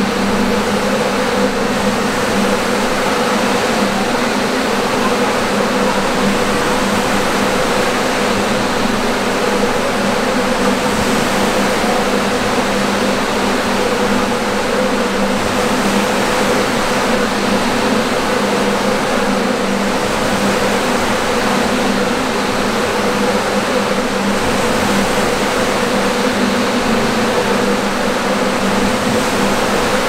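Hydraulic wave machine of a large wave flume running with a steady two-tone hum, over a constant rushing of waves breaking and running down the channel.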